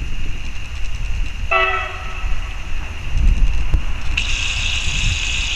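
Horn of an approaching train sounding a short blast about a second and a half in, then a louder, higher-pitched blast from about four seconds in. Wind rumbles on the microphone.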